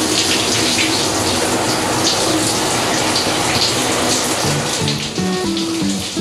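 Shower running: water spraying steadily from an overhead rain shower head onto a person and the shower floor. Background music with a simple melody comes in about four and a half seconds in.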